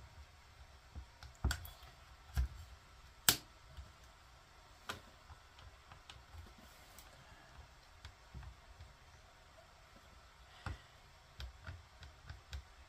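Scattered light clicks and taps as a plastic mirror dash cam and its mounting bracket are handled on a desk, the sharpest about three seconds in.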